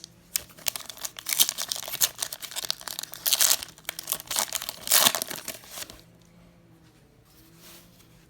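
The wrapper of a basketball card fat pack being torn open and crinkled: a dense crackle of small clicks and crinkles that stops about six seconds in.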